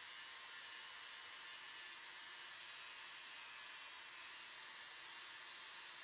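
Dremel 3000 rotary tool running at high speed with a steady high whine, its diamond cylinder bit grinding feather detail into tupelo wood. The whine's pitch wavers slightly a few times.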